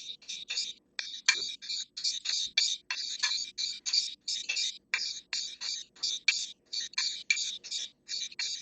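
Steel knife blade stroked rapidly back and forth across a 3000-grit sharpening stone, a quick run of short scraping strokes at about four a second.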